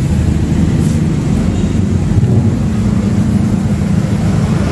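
A steady, loud, low-pitched rumble that keeps on without a break.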